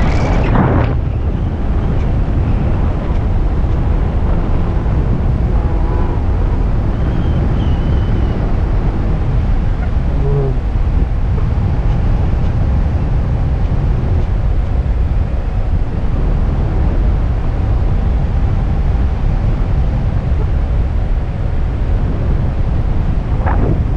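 Steady wind rushing over the microphone of a camera carried by a paraglider in flight: a loud, low, even buffeting from the airflow.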